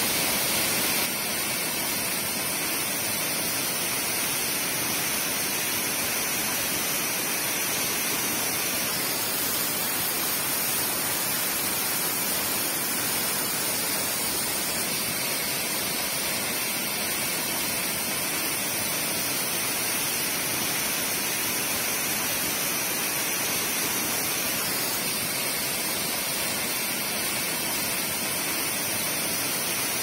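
Tall waterfall plunging down a rock face, heard close to its foot as a steady rushing noise.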